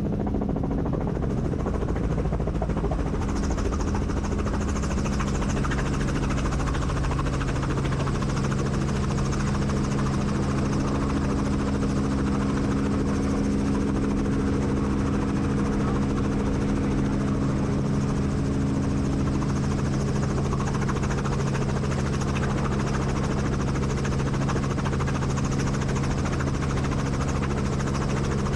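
Helicopter running steadily, heard from aboard: an even drone of engine and rotor noise with a low multi-tone hum that settles and holds steady a few seconds in.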